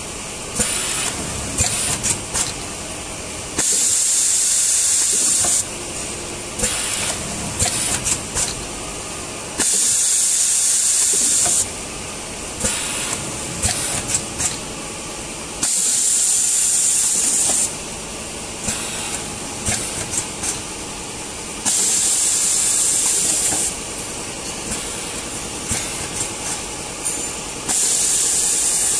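Automatic vertical liquid packing machine for cooking oil running through its cycle: a loud hiss of compressed air lasting about two seconds repeats every six seconds, five times, with clicks and clatter from the machine's moving parts in between.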